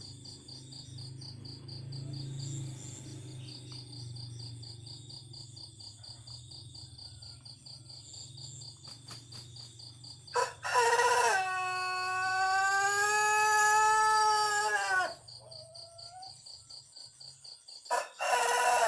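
Pelung rooster, the long-crowing Cianjur breed, flaps its wings about ten seconds in and gives one long crow of about four and a half seconds, held on a steady pitch and dropping at the end. A second crow begins near the end. Crickets chirp steadily before the crow.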